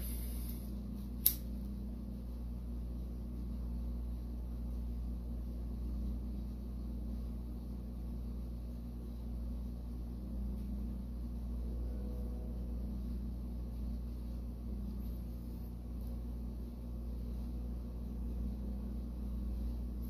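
A Bic lighter struck once, a single sharp click about a second in, then a steady low hum while the flame heats a wire splice for soldering.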